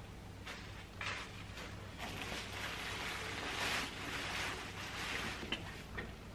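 Quiet handling noise as an aluminium stepladder is moved and set in place: a few light knocks and a soft rustling hiss that swells in the middle.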